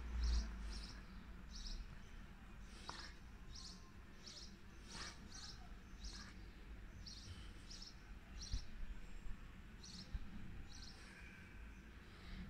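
A small bird chirping over and over, short high chirps about one or two a second, over faint steady background noise. A brief low rumble on the microphone right at the start is the loudest moment.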